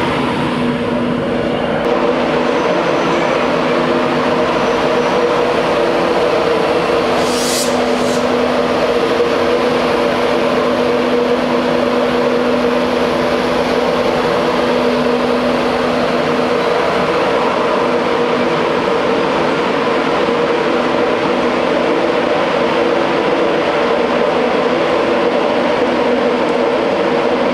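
Class 91 electric locomotive 91101 humming steadily at close range, a continuous machinery drone made of several steady tones over a rushing haze; the lowest tone drops out about two-thirds of the way through. A brief sharp hiss about seven seconds in.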